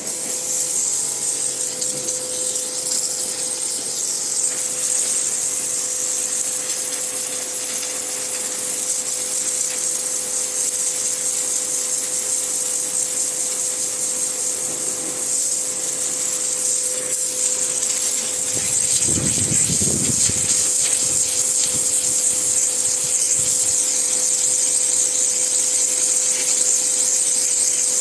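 Pressure washer running steadily: a constant motor hum under the hiss of the water jet spraying a wall, with a brief low rumble about two-thirds of the way through.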